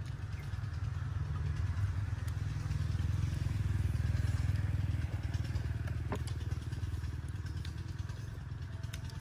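Engine of a passing motorbike, growing louder to a peak about four seconds in and then fading away. A single light click about six seconds in.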